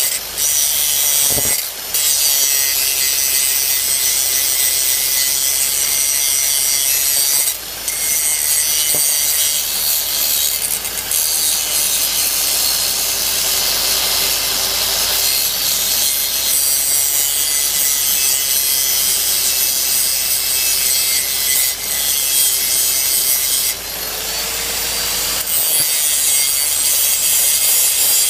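Corded angle grinder grinding steel bar, a loud, steady harsh grinding noise over the motor's whine. It dips briefly a few times as the disc comes off the metal, and the whine rises briefly near the end.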